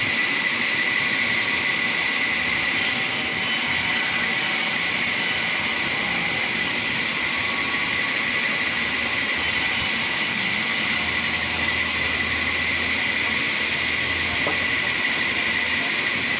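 Sawmill machinery running steadily: a loud, constant mechanical noise with a high-pitched whine over it.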